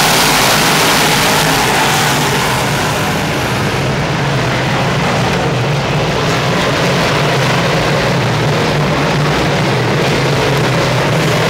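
Pack of big-block dirt Modified race cars with V8 engines running at speed around the track, a loud, steady drone of many engines together.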